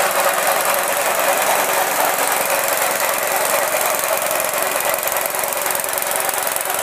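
Small 6.5 hp petrol engine running steadily, driving the drum of a home-built wood chipper with no branches being fed.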